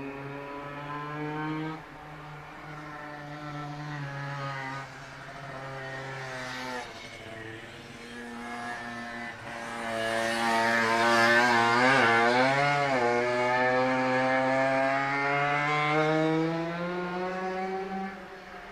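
Yamaha TZM two-stroke single with a DGW expansion-chamber exhaust, run hard on a circuit. Its pitch climbs and drops back at upshifts about 2, 5 and 7 seconds in, then comes a longer, louder pull that wavers in pitch about halfway through, climbs again, and drops near the end.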